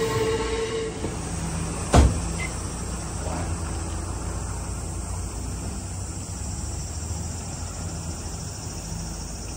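Hakone Tozan Railway train wheels squealing on the rails with a steady high tone, which stops about a second in. A sharp click follows about two seconds in. After it come a steady low rumble and a steady high insect buzz.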